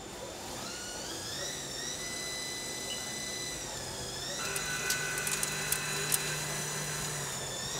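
Haas ST-10 CNC lathe running a part: the spindle whine climbs in pitch as it spins up about half a second in, dips and climbs again near four seconds, then holds steady with a scatter of sharp ticks as the machining goes on.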